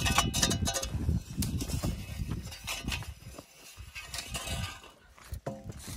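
Shovels scraping and digging into loose dirt, in irregular strokes.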